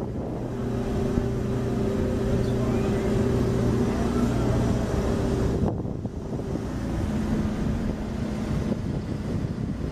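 Wind buffeting the microphone over a steady, low, pitched machinery hum aboard a ship. The hum breaks off briefly about six seconds in and comes back a second later.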